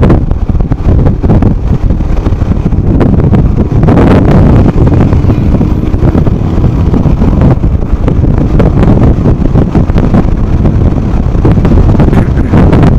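Wind buffeting the microphone on a moving motorcycle, over the low rumble of a Royal Enfield Himalayan's single-cylinder engine under way, with a stronger gust about four seconds in.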